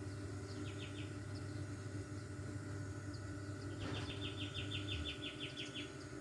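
A small animal chirping in quick even runs, about six chirps a second: a short run of four about half a second in, then a longer run of about two seconds from about four seconds in, over a steady low background hum.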